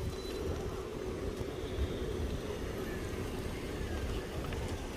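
Steady outdoor traffic ambience: a low rumble and hiss of passing vehicles, with a faint steady hum underneath.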